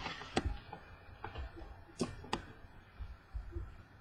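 2015 Topps Tribute baseball cards being shuffled and flicked through by hand: a few sharp clicks and snaps of card stock, loudest as a close pair about two seconds in.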